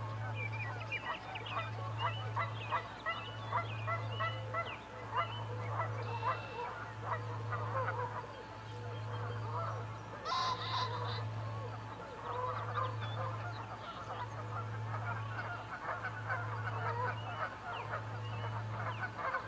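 Outdoor bird chorus: many short, overlapping calls, a steady chatter of honking-type calls. Under it, a low hum pulses on and off about once a second.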